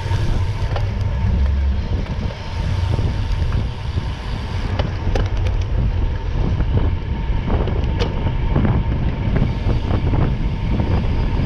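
Steady low rumble of a moving vehicle, with a few short clicks.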